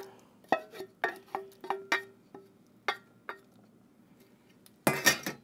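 A wooden spoon tapping and knocking against a stainless steel saucepan, about ten light taps over three seconds, some with a short metallic ring. A louder, brief clatter comes near the end.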